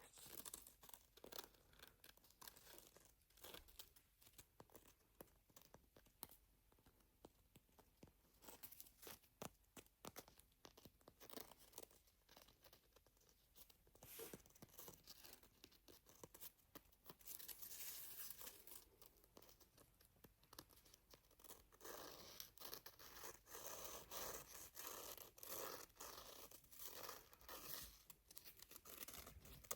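Butterfly nail file being scratched: many quick, soft scratchy strokes, with longer runs of continuous scratching in the middle and through the last third.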